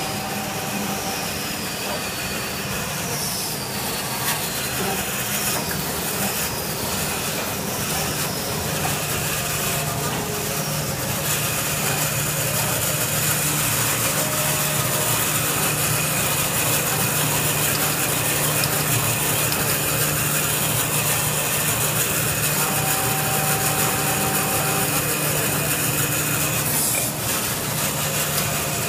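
Full-auto band saw tissue-paper cutting machine running: steady mechanical noise from the saw, conveyor and feed mechanisms. A few short falling squeaks come in the first several seconds. A high steady hiss joins about eleven seconds in and stops shortly before the end.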